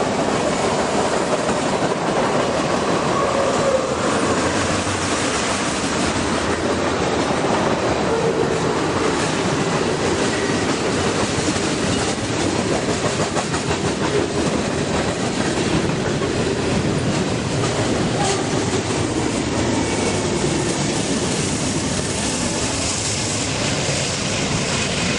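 Freight train of tank cars and covered hoppers rolling past close by, a steady loud rumble with the wheels clicking over the rail joints.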